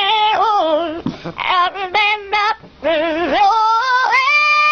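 A parrot singing in a wavering, song-like voice, phrase after phrase, then holding one long steady note near the end.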